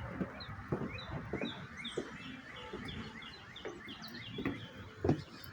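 A songbird singing a rapid series of short, repeated down-slurred chirps, about four or five a second, for roughly three and a half seconds. Scattered soft low thumps sound beneath it.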